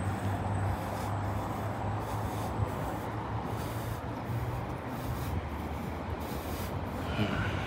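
Steady street noise: a low rumble of road traffic with a hiss over it, no single distinct event.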